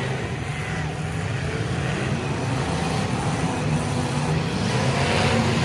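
Demolition derby cars' engines running together on the track, a steady low mechanical drone.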